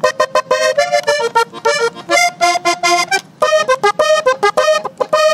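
Diatonic button accordion played solo, a lively vallenato-style melody in quick, short, separate notes.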